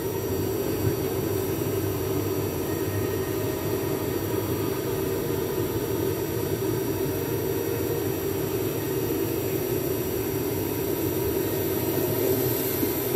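Steady drone and hiss of an airliner cabin's air-conditioning and ventilation with the plane parked for boarding, with a few faint high, steady whining tones over it.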